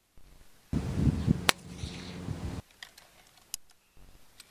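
A .177 Black Ops pellet rifle dry-fired without a pellet: one sharp, loud crack about a second and a half in, inside about two seconds of low rumbling noise. A few lighter clicks follow near the end.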